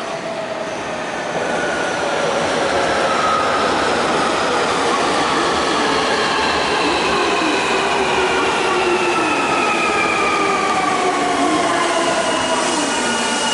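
Nankai 12000-series limited express electric train pulling into the station at low speed, its running gear whining in several tones that fall steadily in pitch as it brakes, over a steady rolling rumble. The sound swells about a second and a half in.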